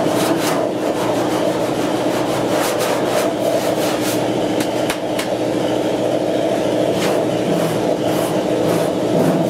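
Repeated scraping strokes of a hand tool shaping hardened body filler on a truck cab's steel rear panel. A steady hum runs underneath.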